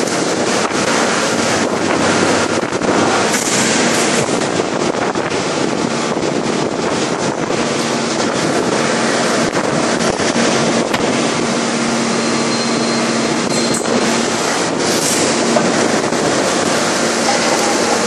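Steady loud machinery roar from a hydraulic open die forging press at work, with a faint low hum that grows more noticeable about halfway through and scattered brief crackles and knocks.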